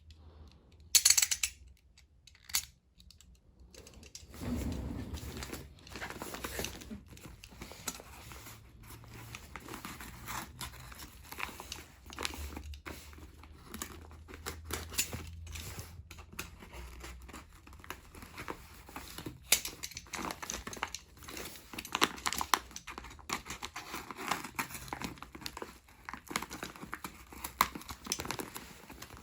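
Plastic packaging being handled and unwrapped: irregular crinkling and rustling with sharp crackles and occasional tearing, and a few louder snaps scattered through.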